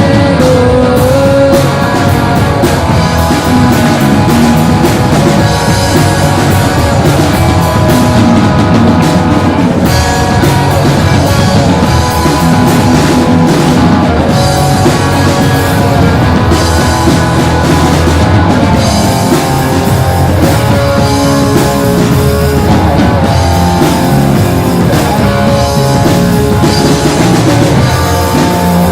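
Rock band playing live: electric guitars, bass guitar and drum kit in an instrumental passage without vocals.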